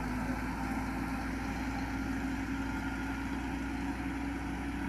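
Farm tractor engine running steadily while it drives a boom sprayer, a constant even hum.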